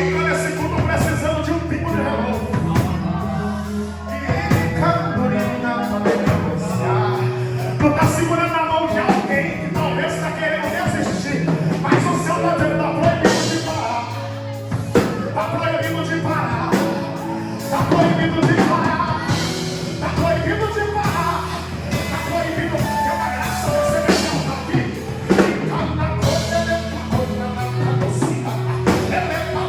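A live gospel worship band playing a song, with singing over a band with a steady bass line and drum beats.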